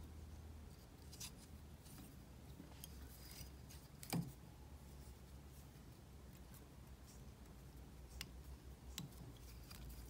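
Faint clicks and rubbing of hand fly tying: thread being wrapped and pulled tight on a jig head in a vise while the materials are handled, with one sharper click about four seconds in, over a low steady hum.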